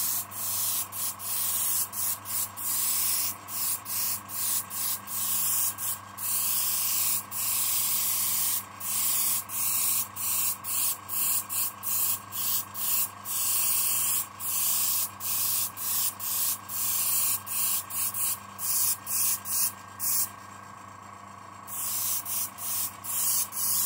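Siphon-feed airbrush spraying acrylic paint, hissing in many short spurts as the trigger is pulled and released, over the steady hum of its air compressor. The spray stops for about a second and a half near the end, leaving only the compressor hum.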